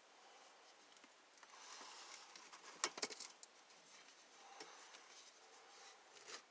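Faint handling noise: soft rustling with a few sharp clicks, the loudest about halfway through and another near the end.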